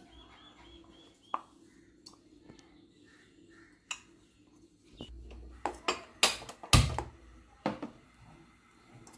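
Metal cookware being handled: a few light clicks, then a cluster of sharp clanks and knocks from about five seconds in, the loudest with a dull thud, as steel and aluminium pots and pans are set down.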